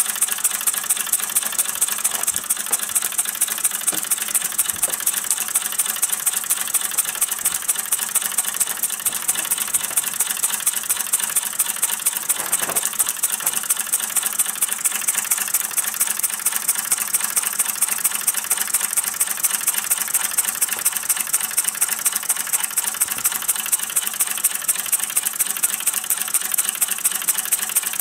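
Gas-fired Mamod SP7 twin-cylinder sleeve-valve model steam engine running steadily with a rapid, even beat of exhaust and moving parts.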